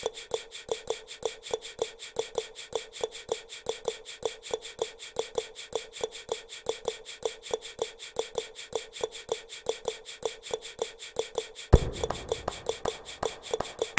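Fast, evenly spaced ticking clicks at one steady pitch, like a rhythm track. About twelve seconds in, a deep thump lands and a lower, fuller layer joins the ticking.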